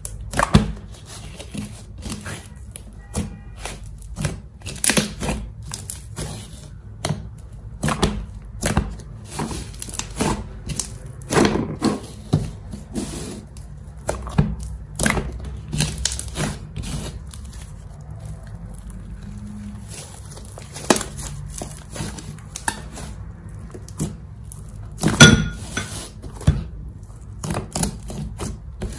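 Hands kneading, folding and squeezing slime, giving irregular clicks and pops, with the sharpest pop about 25 seconds in.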